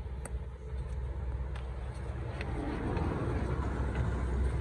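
Low rumble of passing road traffic that slowly grows louder, with a couple of faint ticks.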